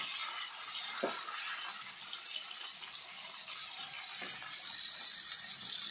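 Kewai (climbing perch) frying in hot mustard oil in a kadhai: a steady sizzle. The metal spatula clicks faintly against the pan or fish about a second in and again a little after four seconds.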